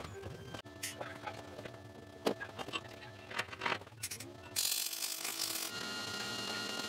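Metal clicks and knocks from welding clamps and a steel pipe being set on a steel propane tank. About four and a half seconds in, a wire-feed welder's arc crackles for about a second as a short tack weld, and a fainter steady hiss follows.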